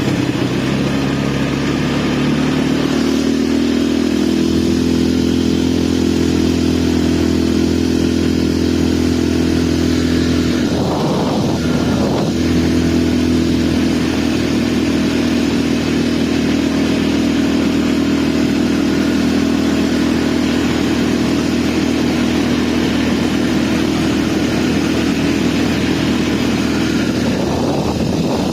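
ATV engine running under way, its pitch stepping up over the first few seconds and then holding steady, with a brief break about eleven seconds in.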